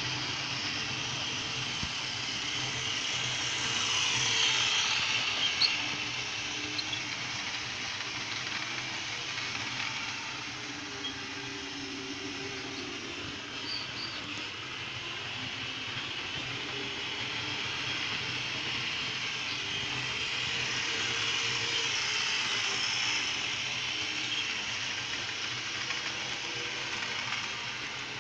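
Model train of the CC 72001 diesel locomotive running round the track: a steady whirr of its small electric motor with wheels rattling on the rails, louder twice as it passes close by.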